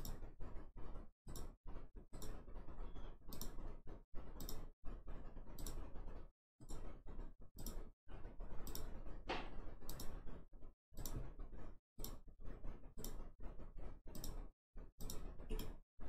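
Computer mouse clicking: a string of light clicks at an irregular pace, often two close together.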